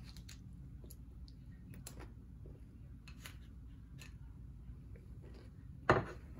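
Faint crisp crunches of a fried corn tostada being bitten and chewed, heard a few times over a low steady hum. About six seconds in there is a single sharp knock as a ceramic plate is set down on the stone countertop.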